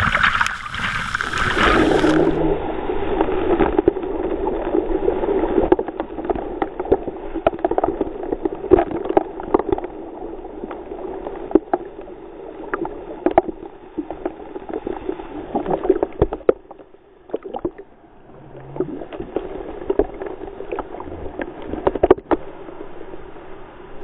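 Water splashing and churning in a waterfall's plunge pool, picked up at the surface by a GoPro. From about two seconds in the sound is slowed down: it turns to a deep, muffled gurgling with scattered sharp splashes, and it drops quieter briefly around two-thirds of the way through.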